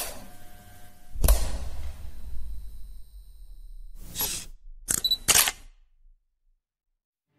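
Intro sound effects: a sharp hit, then a deep boom that rumbles on. Then come SLR camera sounds: a focusing burst, a short focus-confirm beep and two quick shutter clicks.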